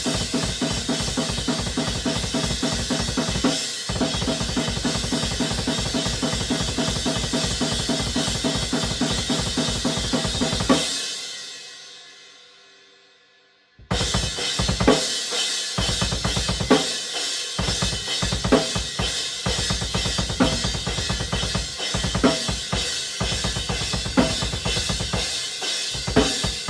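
Drum kit played hard in a rock/metal style, with rapid bass drum strokes under crash cymbal wash, featuring a Zildjian A Custom 19-inch Brilliant crash. About eleven seconds in, the kit stops and the cymbal rings out, fading over about three seconds. The playing then comes back in with accented crash hits.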